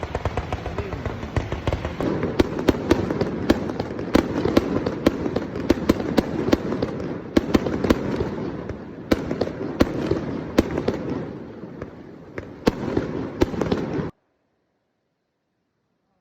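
Fireworks display: a dense run of bangs and crackling over a continuous rumble, thinning out after about twelve seconds and then cutting off abruptly into silence.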